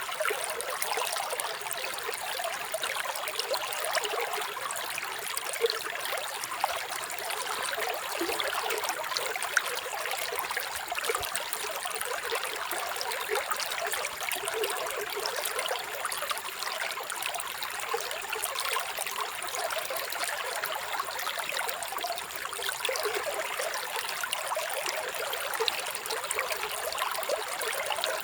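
Running water: a stream trickling and splashing steadily, a light, bright sound with no deep rumble.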